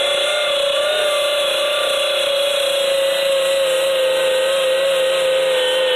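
Air-powered eraser-wheel tool running with a steady high whine as it strips vinyl decals off a school bus's steel side panel. The pitch sags slowly as the wheel works against the panel.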